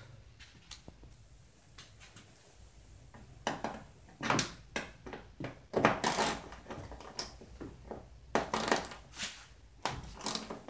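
Socket wrench and then fingers working a bumper bolt out of a 2003 Toyota Sienna's rear bumper cover. There are irregular clicks and knocks of tool on bolt and plastic, starting about three and a half seconds in after a quiet start.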